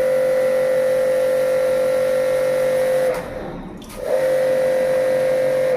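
Small electric motor whining steadily at one pitch, of the kind heard from a pressure-washer pump used to clean an air conditioner's outdoor unit. It cuts out for about a second just past the middle, then starts again.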